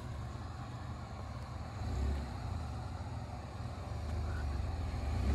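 A vehicle engine running with a low rumble that swells and eases, with wind buffeting the microphone.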